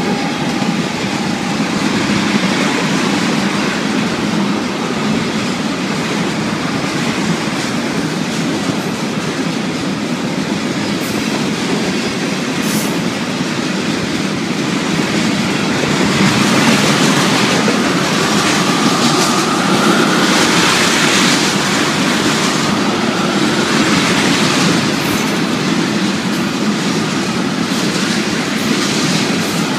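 Freight train of loaded tank cars passing close at speed: a steady rumble and clatter of steel wheels on the rails, right behind the GE diesel locomotives. The last of a locomotive horn blast fades out at the very start, and a faint wheel squeal rises in pitch about two-thirds of the way through.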